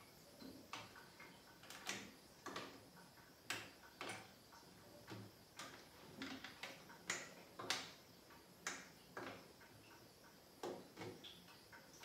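Push buttons on the control panel of a Whirlpool AWS 71200 washing machine pressed one after another: a series of short, sharp clicks at uneven spacing, about one or two a second.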